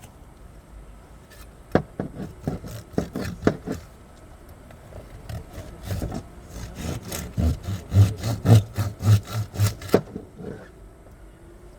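A knife sawing through a large jack, back-and-forth rasping strokes at about two a second that grow heavier, then stop about ten seconds in.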